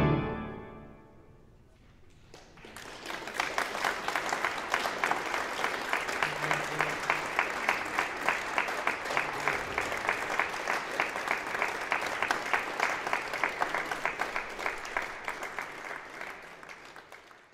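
A pipe organ's final chord dying away in the hall's reverberation, then an audience applauding steadily with many quick claps, tailing off near the end.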